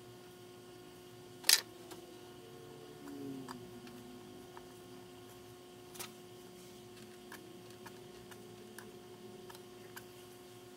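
Small clicks and light taps as a screwdriver handle is pressed and rocked against an oil pressure gauge's metal bezel lip to roll it over, with one sharper click about a second and a half in. A steady hum runs underneath.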